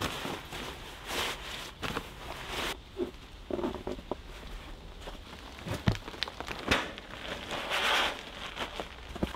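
Fabric rustling and crinkling as a sleeping bag and a synthetic stuff sack are handled and gathered up, with a few sharp knocks, the loudest about six seconds in.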